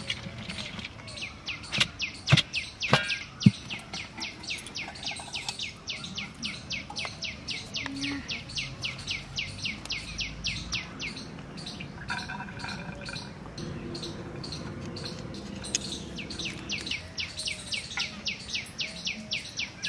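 A bird calling in a long, fast, even series of short high chirps, about four a second, broken off for a couple of seconds around twelve seconds in. A few sharp clicks come between two and four seconds in, as the brass lid and metal spoon are handled on the pot.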